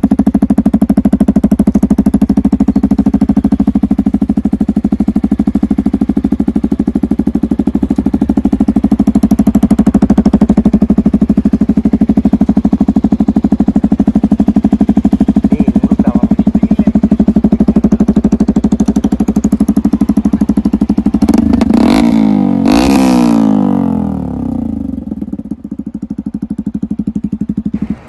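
A motorcycle engine running close by with a loud, fast, even exhaust beat. A little past two-thirds of the way in, a louder burst falls away in pitch, and the beat then carries on more quietly.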